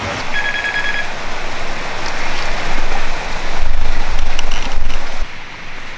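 Steady wind hiss on the microphone, with heavier low buffeting in the second half. Near the start, a brief fast ratcheting that fits a fishing reel's drag giving line to a hooked fish.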